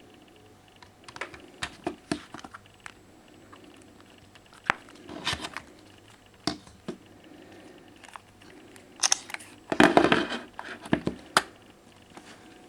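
Handling noise of the phones: scattered clicks, taps and short rustles, with the loudest cluster of rustling and knocks about ten seconds in.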